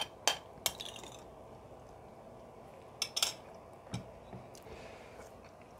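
An eating utensil clinking against a bowl: a few sharp clicks at the start, a quick cluster about three seconds in, and a softer knock about a second later.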